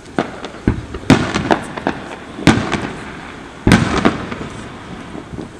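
Aerial fireworks bursting: a run of sharp booms, several in quick succession, with crackling trails after the two biggest bursts.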